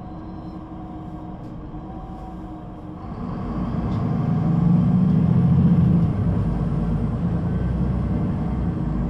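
Solaris Urbino 18 III articulated bus's DAF engine running steadily, then about three seconds in growing louder as it works harder, loudest around five to six seconds, before easing to a steady run.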